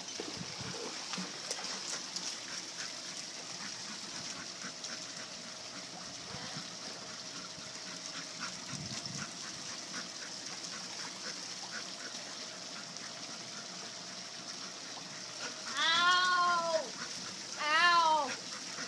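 A large black dog whines twice near the end, two drawn-out cries, each rising then falling in pitch, the first about a second long. Under it, faint pool water splashing.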